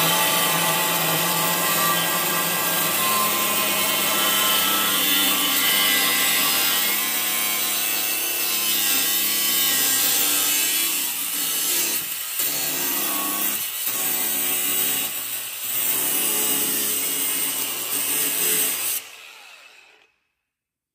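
A power tool running steadily as it cuts through material, with a few brief dips in the second half. It stops about a second before the end.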